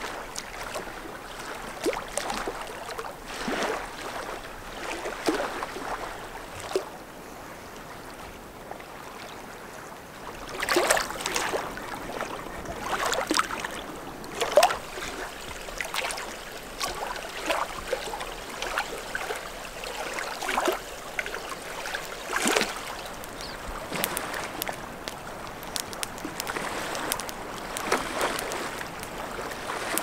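Riverside outdoor ambience: steady water noise with many short, scattered sounds over it, busiest about a third of the way in.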